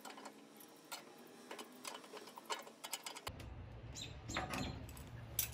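Faint, irregular metallic clicks and taps of adjustable pliers-wrenches gripping and turning the nut on a caster's threaded stud against a steel stand leg.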